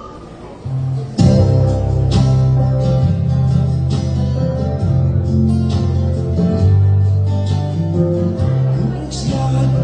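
Band music led by guitar over a deep bass line, with sharp strummed strokes; it comes in loud about a second in.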